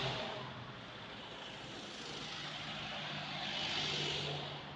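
Cars passing on an asphalt road: tyre and engine noise of one car fading away, then another swelling up and passing close about four seconds in before fading.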